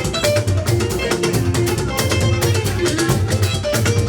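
Upbeat live church music: a fast, steady percussion beat, with shaker-like strikes, over held bass and melody notes.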